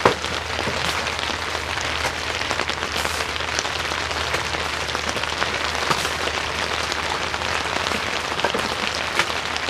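Steady rain falling on a tent, with a few sharp clicks scattered through it.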